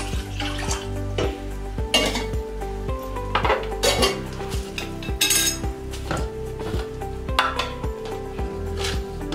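Stainless steel kitchen utensils clinking and knocking against each other, about one sharp clink every second, as water is measured from a steel tumbler into a steel pot. Background music plays underneath.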